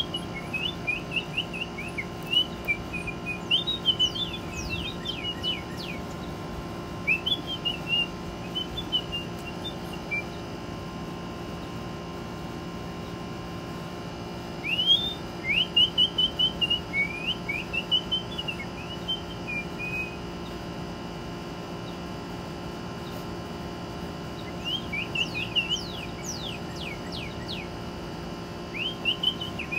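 A person whistling to a northern cardinal and the cardinal singing: bursts of clear slurred whistled notes, some phrases with very quick steep down-slurs, a few seconds at a time with pauses between. A steady low hum runs underneath.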